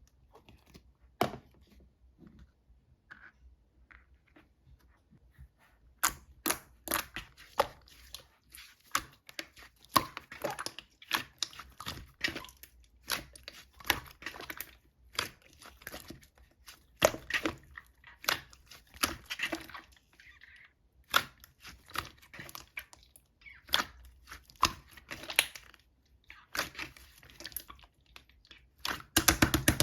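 Slime being squished and stretched by hand, giving off many sharp, irregular clicks and pops as air pockets burst. The pops are sparse at first, turn dense about six seconds in, and bunch into a quick flurry near the end.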